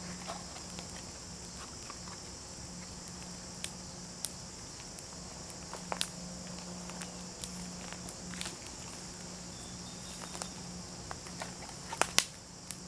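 Scattered sharp snaps and crackles from footsteps on dry twigs and brush and from a small kindling fire catching, over a steady high insect chorus. The snaps come closer together near the end.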